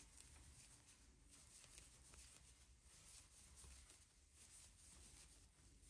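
Near silence: room tone, with only faint soft handling noise.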